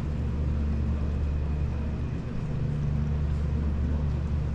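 Steady low mechanical hum with several held low tones, even in level throughout.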